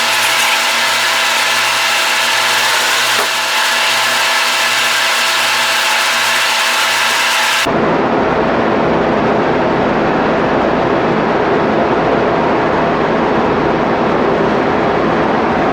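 Loud, steady machinery noise of a ship's engine room, with running diesel generators giving a constant hum and hiss. About eight seconds in it switches abruptly to a rougher, deeper rumble.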